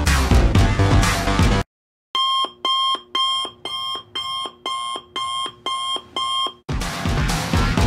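An electronic beep repeating about twice a second, ten beeps in a row, like an alarm clock going off. It starts after the background electronic music cuts out briefly, and the music comes back near the end.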